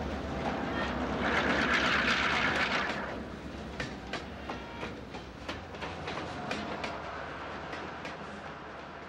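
EMD GP38-2 diesel locomotives passing close by: their engines run loud for the first three seconds, then the engine noise falls away and the wheels click over rail joints about three times a second, slowly fading as the units move off.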